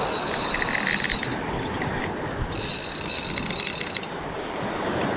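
Shimano Stella 8000 spinning reel working under the load of a hooked tuna, giving fast mechanical clicking in two spells of about a second and a half each, at the start and again midway. Wind and sea noise run beneath it.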